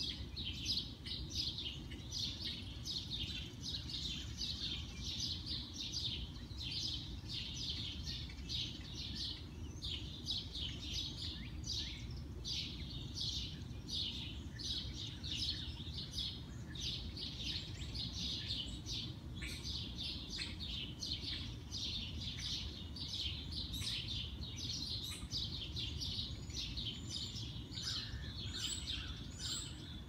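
Many small birds chirping and singing at once in a dense, continuous early-morning spring chorus of short high chirps. A low steady rumble runs underneath.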